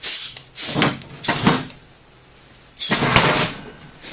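Homemade steel scissor lift with its hydraulic cylinder being raised, in four bursts of sliding, scraping metal from the arms and pivots, the loudest about three seconds in.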